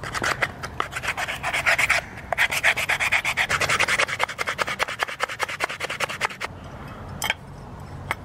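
Hand sanding a pine workpiece with sandpaper on a sanding block: rapid back-and-forth rubbing strokes, several a second, with a brief pause about two seconds in. The sanding stops about six and a half seconds in, followed by a couple of light taps.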